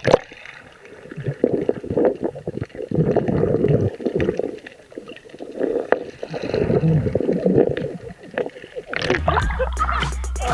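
Sea water sloshing and gurgling close by in uneven surges. Background music comes back in near the end.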